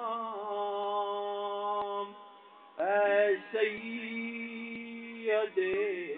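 Man chanting an Urdu salam (devotional salutation) unaccompanied, drawing out long held notes. One held note fades about two seconds in, and after a short dip a new phrase starts with rising and falling turns before settling on another long note.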